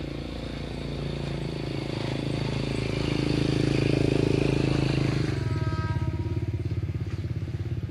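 A vehicle engine running with a steady drone that swells to its loudest about four seconds in. After about five seconds it changes to a rapid, even pulsing.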